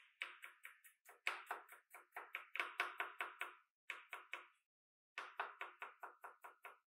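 Chef's knife slicing ginger and then garlic cloves on a cutting board: quick, even knocks of the blade on the board, about four to five a second, in several runs broken by short pauses.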